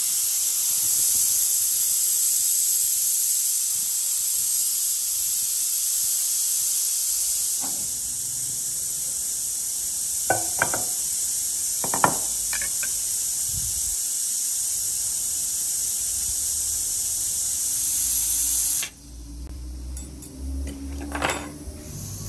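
Afghan kazan pressure cooker venting steam through its lid valve, held open to release the pressure: a steady loud hiss that cuts off suddenly near the end. A few light clinks sound midway.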